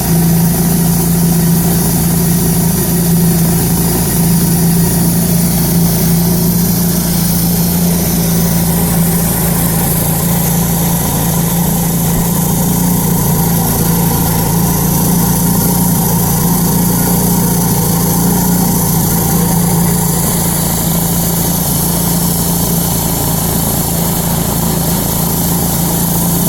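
Wood-Mizer LT-10 portable band sawmill running steadily under load as its band blade cuts lengthwise through a log, with a constant engine hum.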